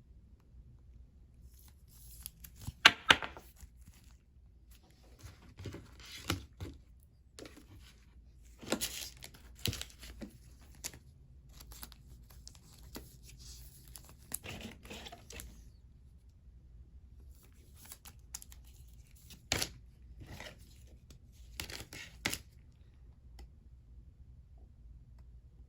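Crinkling and tearing of plastic-foil trading card pack wrappers as cards are handled, in short scattered bursts, the loudest about three seconds in.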